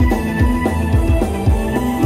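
Kecimol street-dangdut band music played loud through a stacked sound system: quick drum strokes, each falling in pitch, over sustained keyboard notes.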